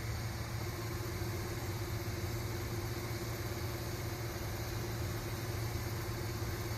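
Extruder stepper motor of an Asterid 2000 3D printer running steadily, feeding filament through the hot end during a test extrusion: a steady whine starting about half a second in, over a constant low hum.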